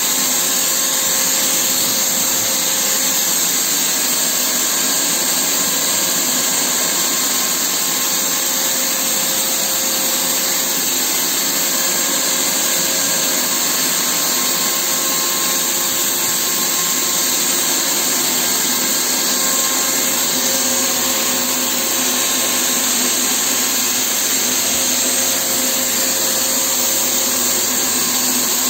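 Bosch PFS 5000 E paint spray system running steadily: its turbine blower feeds air down the hose to the spray gun, with the hiss of paint being atomised onto a wall.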